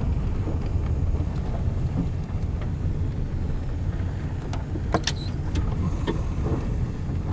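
Car driving, its engine and tyre noise a steady low rumble heard from inside the cabin, with a few light clicks about five seconds in.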